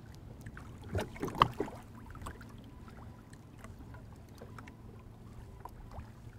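Small waves lapping against a plastic fishing kayak's hull, with scattered small clicks and knocks of fishing gear and a couple of louder knocks about a second in, over a faint steady low hum.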